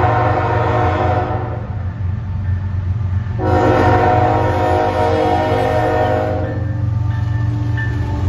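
Diesel freight locomotive's multi-chime air horn sounding two blasts: one cuts off about a second in, and a longer one of about three seconds starts near the middle. The diesel engine's low rumble runs underneath as the lead locomotive approaches and passes close by.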